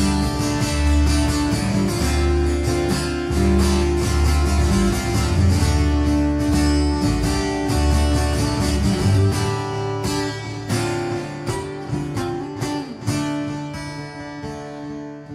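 Acoustic guitar strummed live, an instrumental run of chords, which grows quieter and sparser over the last few seconds.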